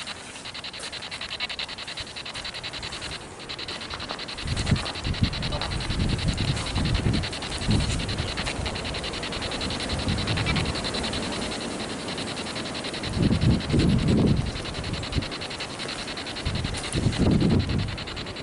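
Footsteps and rubbing from walking along a creek bank with a handheld camera, coming in several irregular clusters of low thuds over a steady high-pitched hiss.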